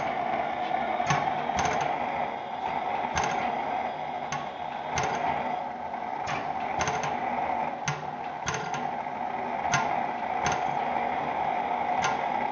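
Blaisdell gas engine-compressor running, with sharp beats at uneven intervals, roughly one a second, over a steady hiss.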